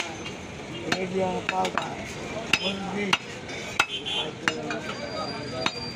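Butchers' cleavers chopping meat on wooden stump blocks: irregular, sharp knocks.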